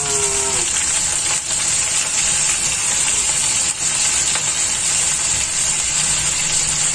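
Freshly added bok choy and carrot sizzling in hot oil in a wok with bacon and onion, a steady frying hiss.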